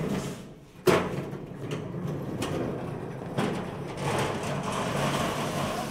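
Flatbed platform cart rolling and rattling over a concrete floor, with a sharp bang about a second in.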